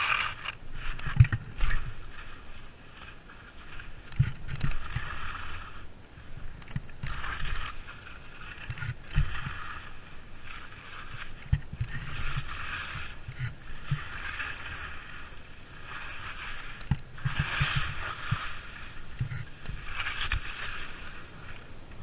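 Skis turning down a steep snow slope: a scraping swish of the edges on the snow with each turn, coming about every two to three seconds, over scattered low thumps.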